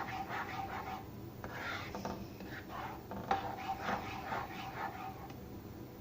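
A spoon stirring thick dal in a cooking pot, scraping the pot irregularly, with a few light knocks of the spoon against the pot.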